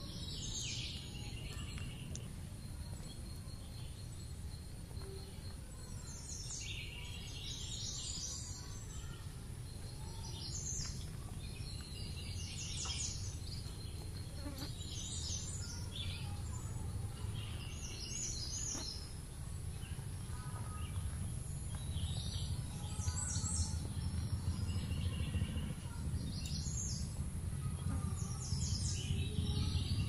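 Birds chirping in short bursts every second or two over a steady high insect whine, with a low outdoor rumble that grows louder near the end.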